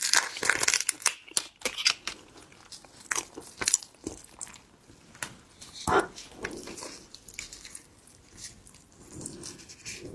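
Close-miked biting and crunchy chewing of seafood in red chili oil, a quick run of crackly crunches at first, then scattered louder bites.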